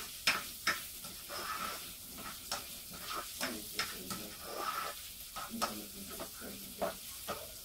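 Chopped onion sizzling as it fries in a non-stick pot, stirred with a spatula, with irregular scrapes and taps of the spatula against the pan.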